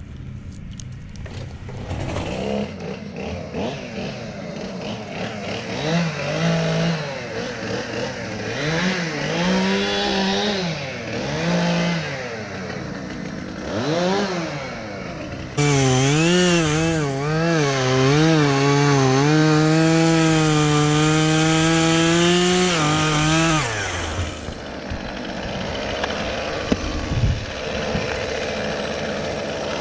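Two-stroke chainsaw engine revving up and down in short blips, then held at full throttle for about eight seconds before dropping back to idle.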